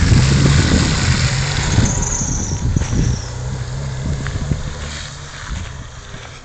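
Nissan Patrol four-wheel drive's engine running as it drives away over a dirt track, its low hum fading steadily as it gets farther off.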